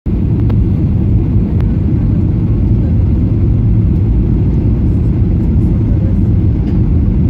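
Steady low rumble of a Ryanair Boeing 737's jet engines and rushing airflow, heard from inside the passenger cabin on the landing approach.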